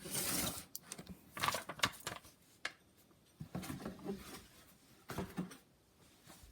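Hands rummaging in a cardboard box of packaging, making bursts of rustling and scraping with a sharp click about two and a half seconds in.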